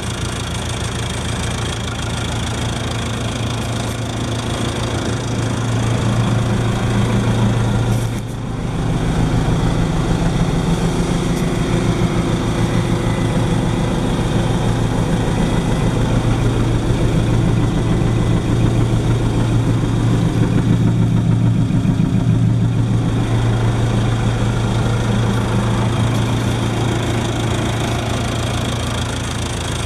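Aircraft towing tug's diesel engine idling steadily. It grows a little louder about six seconds in and dips briefly just after eight seconds.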